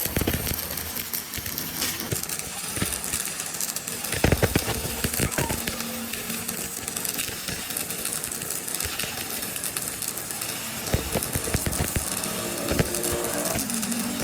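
Workshop noise during a metal part repair: a steady hiss with scattered knocks and clicks, bunched around the start, about four seconds in, and again near the end.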